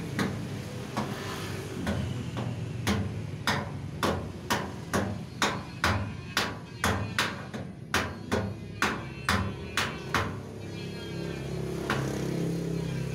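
Hammering: a run of sharp hard knocks, a few scattered at first, then about two a second for some seven seconds, stopping near the end, over a steady low hum.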